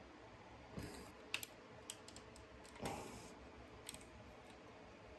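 Hard plastic figure parts being handled and pressed together: a handful of quiet, irregular clicks and knocks as pegs are worked into holes.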